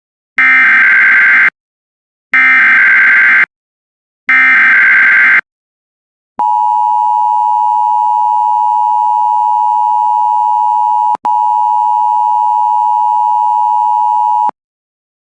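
Emergency Alert System signal: three identical, roughly one-second bursts of screechy digital header data, about two seconds apart, followed by the steady EAS attention tone held for about eight seconds, with a split-second dropout partway through.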